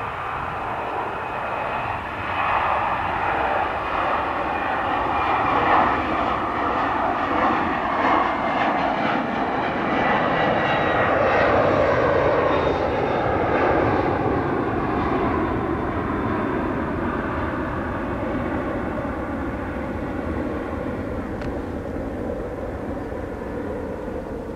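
Twin-engine jet airliner climbing out just after takeoff, its engines at takeoff power: a steady jet rush that builds over the first couple of seconds, is loudest about halfway through with a high whine sliding down in pitch, then slowly fades as the plane climbs away.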